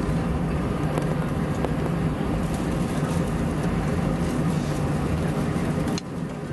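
Airbus A320 cabin noise on the ground just after landing: a steady rumble of the engines and the airframe rolling along the taxiway. It drops suddenly in level about six seconds in.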